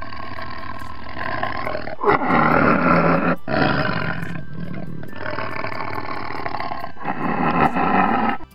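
Tiger roaring: a run of about five long, rough calls with short breaks between them, cutting off sharply near the end.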